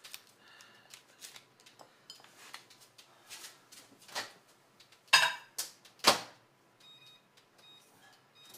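Small clicks and knocks of a dish being handled, then two loud clunks about five and six seconds in as the over-the-range microwave's door is opened and shut. Near the end come a few short high beeps from its keypad as it is set to melt butter.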